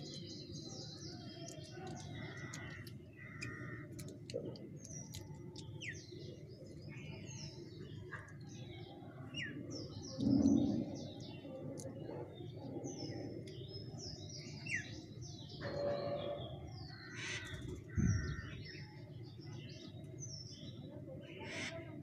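Birds chirping and calling in many short, quick notes over a steady low rumble. A louder dull bump comes about ten seconds in, and a shorter low knock near eighteen seconds.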